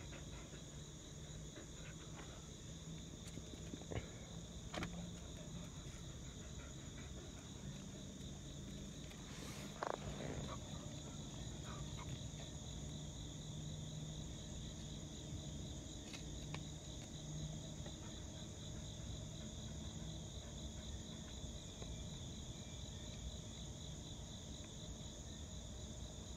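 Steady insect chorus, a high, even chirring drone in two pitches, with a faint low hum underneath and a couple of soft knocks around four and ten seconds in.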